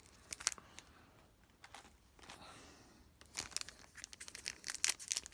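Foil wrapper of a hockey card pack crinkling and crackling as it is handled and opened, sparse at first and then dense from about three seconds in.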